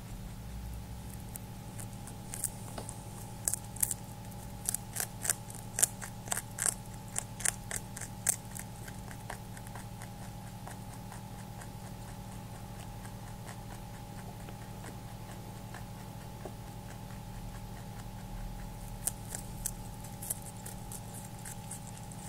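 A rabbit crunching and chewing food: a run of sharp, crisp crunches, a few each second, for the first several seconds, then a quieter stretch of softer chewing, and a few more crunches near the end.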